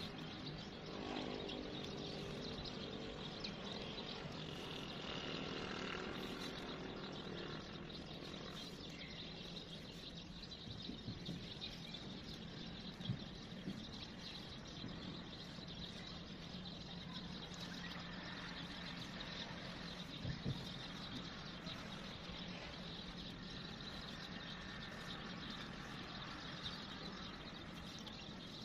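Steady outdoor background noise with faint bird chirps, broken by a few short clicks, the sharpest a little before halfway and again about two-thirds of the way through.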